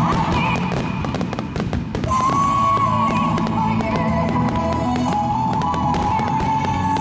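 Fireworks bursting and crackling many times over music with a slow, held melody.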